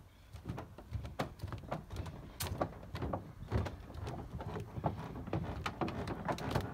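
Footsteps on the wooden planks of a pier, a run of irregular knocks and thuds at walking pace, about two strong ones a second.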